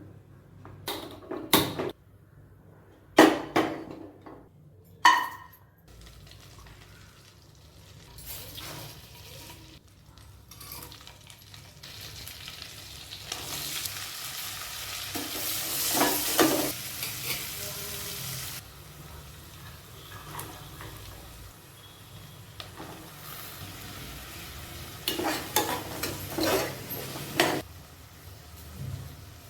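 Food frying in hot oil in a cooking pan, stirred with a utensil that clanks and scrapes against the pan: a few sharp clanks in the first seconds, a louder sizzle about midway, and a run of scraping strokes near the end.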